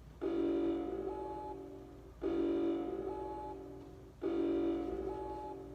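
Greek emergency alert tone: a held, chord-like alarm tone sounding three times, once every two seconds. Each tone fades away, with a higher note joining partway through.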